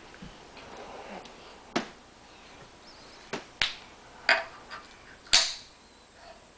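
A handful of sharp clicks and knocks, about six at irregular spacing, the loudest a little past the middle: hard objects being handled and knocked together.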